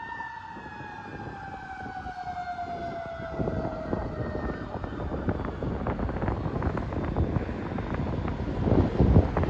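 Fire truck siren winding down, its pitch falling steadily until it fades out about four and a half seconds in. Then a rushing, buffeting noise of wind and road grows louder.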